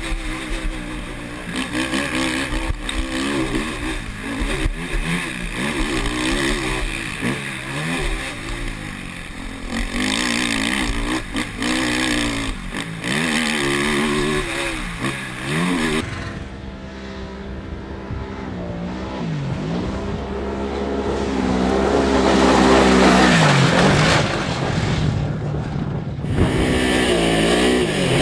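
Off-road car's engine revving hard, its pitch rising and falling repeatedly as the driver goes on and off the throttle. About halfway through the sound changes abruptly to another stretch of driving, where the engine climbs steadily in pitch and gets louder under acceleration. It changes abruptly once more near the end.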